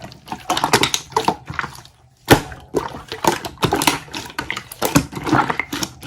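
Slime being squished and pressed by hand, giving irregular wet clicks and pops, a few of them sharper and louder.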